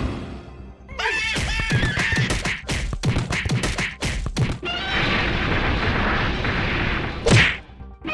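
Music under a rapid run of crashes and impacts starting about a second in, then a stretch of noisy rumble and one loud hit near the end, like cartoon fight sound effects.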